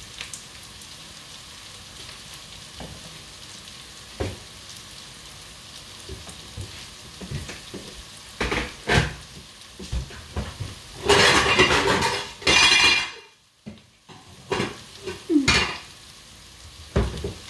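Food sizzling in a pan on the stove while a spoon stirs, scrapes and knocks against the cookware. A louder stretch of clattering and scraping comes about two-thirds of the way in.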